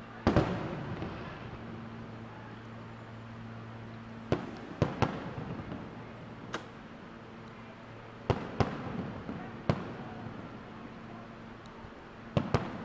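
Aerial firework shells bursting: about ten sharp bangs, several coming in quick pairs, each trailing off in an echo. The first bang has the longest rumbling tail.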